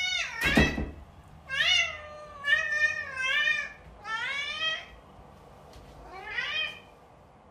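A cat meowing over and over, about five drawn-out meows that rise and fall in pitch, with a short sharp noise about half a second in.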